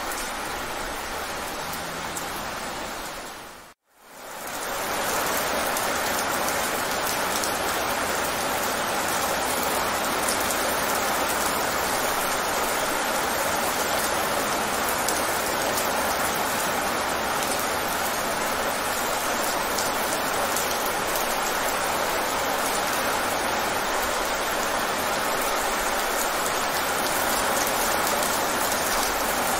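Rain falling fast on wet pavement, a steady hiss of many drops. About four seconds in, it fades out to silence for a moment and comes straight back.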